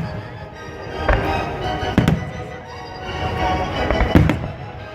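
Aerial fireworks going off: three loud bangs about two seconds apart, with smaller pops between, over music playing along with the display.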